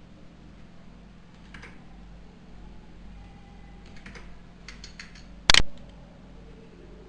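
Scattered light clicks of computer input while drawing a diagram, with one sharp, much louder click about five and a half seconds in, over a steady low hum.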